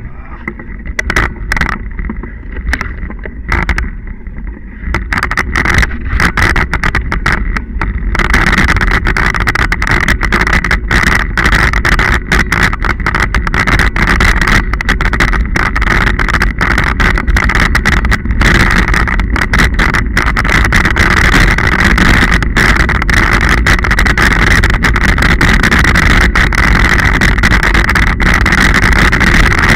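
Scott Genius 40 mountain bike riding a muddy dirt track, heard from a bike-mounted camera: wind on the microphone, tyre rumble, and frequent knocks and rattles over bumps. It gets louder and steadier after about eight seconds.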